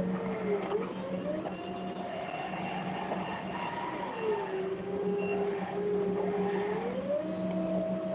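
Electric forklift's motor whining as the truck works, the whine gliding down and up in pitch: it drops about four seconds in, holds low, then rises again near the end. A steady low hum runs underneath.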